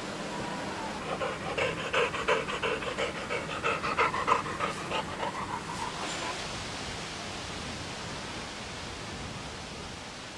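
A dog panting quickly and rhythmically for about five seconds, then stopping, leaving a steady background hiss.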